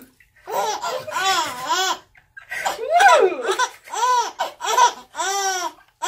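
A baby of about four months laughing in repeated giggling bursts. Each burst is a run of high notes that rise and fall, with short breaths between them.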